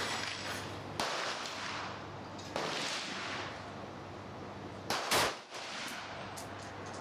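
Several gunshots a second or two apart, each followed by a fading echo under the covered firing line; the loudest comes about five seconds in.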